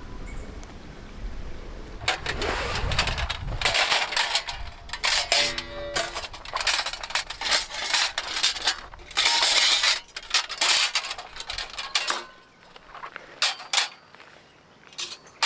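Clinks, knocks and clatter of metal camp cookware and utensils being handled, with one short metallic ring about six seconds in.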